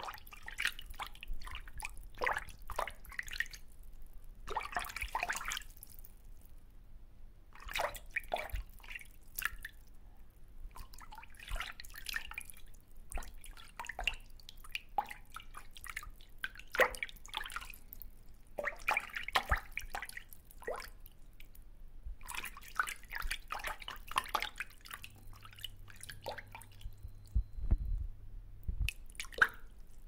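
Small water splashes and drips at the surface of a koi pond, coming in irregular clusters with short pauses between them. A few low thumps near the end.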